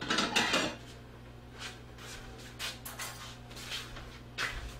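A plate taken from a kitchen cupboard: a clatter of dishes in the first half-second, then a scattering of light knocks and clinks.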